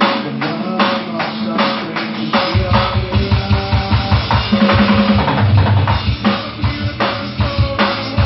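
Drum kit played along to a recorded gospel song with guitar and bass. About two and a half seconds in, the bass drum starts hitting hard and busy under the cymbals and snare.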